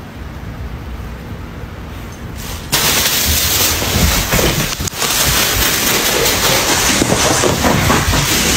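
A plastic shopping bag rustling and crinkling loudly, starting suddenly about three seconds in after a quieter stretch.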